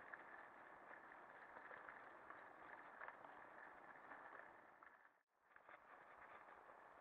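Lapierre mountain bike rattling over a rough, leaf-covered trail: a steady rushing noise full of small knocks and clatters. It cuts out for a moment about five seconds in.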